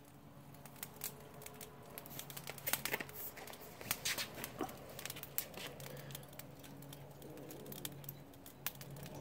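Charcoal burning in a Weber chimney starter, crackling with irregular sharp ticks and pops over a steady low hum.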